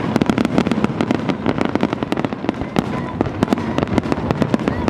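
Fireworks display going off in a dense barrage: rapid overlapping bangs and crackling reports, many to the second, with a continuous rumble between them.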